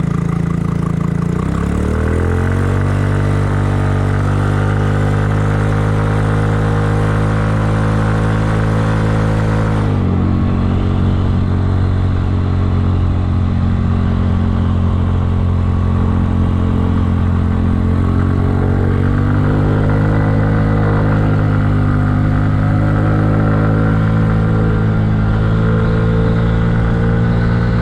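Kymco People scooter's engine and exhaust under way: the engine pitch rises as it accelerates a second or two in, holds steady, drops suddenly about ten seconds in as the throttle eases, then climbs again around nineteen seconds and holds.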